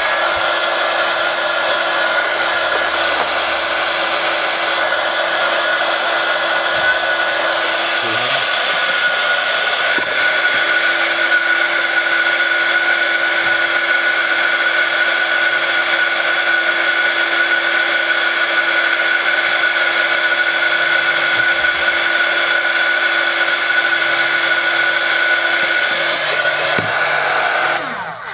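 Hot air gun blowing steadily with a constant whine over the rush of air, heating the front of a smartphone's screen to soften it for removal; it switches off about a second before the end.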